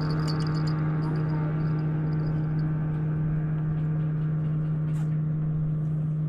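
Boat motor running at a steady speed, a constant even hum that does not change.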